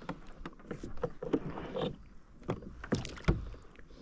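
Clicks and knocks from handling on a plastic sit-on-top kayak as a small peacock bass is released, ending with a sharp splash a little after three seconds in as the fish goes back into the water.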